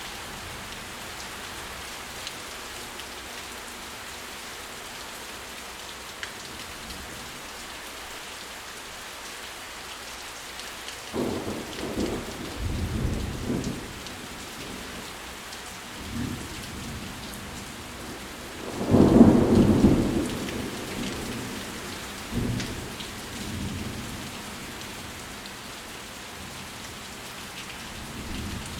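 Steady rain falling, with rolls of thunder: the first rumble about a third of the way in, the loudest about two-thirds in, and a few fainter ones after it.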